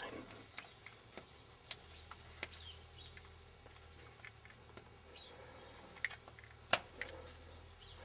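Scattered small clicks and taps of a plastic quick-disconnect release tool being worked onto a metal fuel line at its push-lock fitting, over a faint steady low hum. The sharpest clicks come about two seconds in and near the end.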